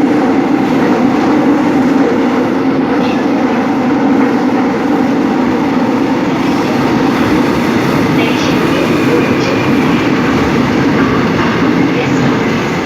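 Seoul Subway Line 5 train running at speed through its tunnel: a steady loud rumble of wheels on rail and traction running, with a few faint, brief high wheel squeals about eight seconds in and again near the end.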